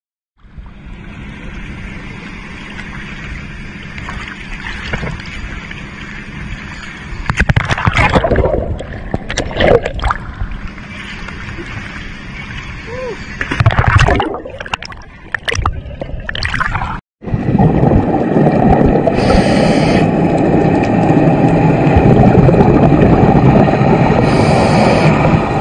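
Water sloshing and splashing around a camera held at the surface, with several louder splashes. After a cut, underwater audio: a dense, steady rush of scuba bubbles with two brief hisses.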